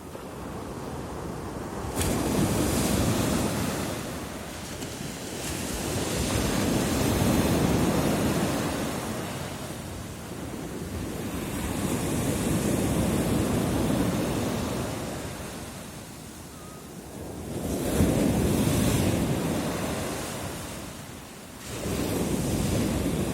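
Sea surf: waves breaking and washing ashore one after another, each surge swelling and fading over several seconds. Three of them break with a sudden crash, the loudest near the end.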